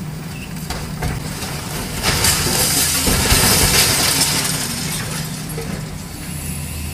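A long-reach demolition excavator's diesel engine running steadily as a section of concrete building breaks away and crashes down, a clatter of shattering rubble that swells about two seconds in and dies away over three seconds.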